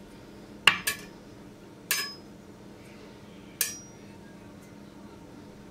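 Metal spatula clinking against a glass baking dish: four short, sharp clinks with a brief ring. Two come close together just under a second in, one about two seconds in, and one a little past halfway.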